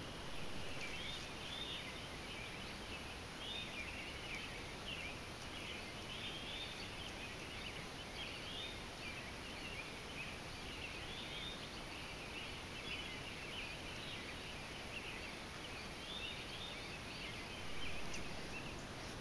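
Faint, high chirping calls from several small animals repeat irregularly over the steady hiss of a trail camera's microphone. The calls stop near the end.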